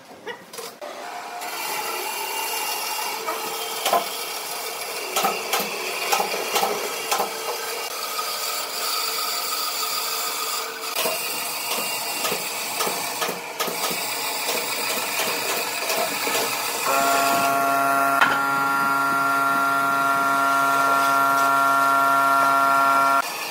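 Bandsaw cutting a curve through a thick wooden slab, with a steady scraping of the blade in the wood and scattered clicks. About two-thirds through, a steady pitched whine joins in as the loudest sound, then cuts off suddenly near the end.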